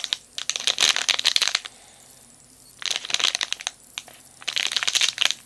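Crinkly plastic candy wrapper crackling as it is gripped and pulled at to open it, in three bursts with short pauses between.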